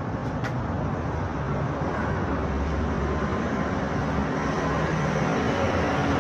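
Street traffic: a motor vehicle engine running nearby over a steady road noise, growing slightly louder.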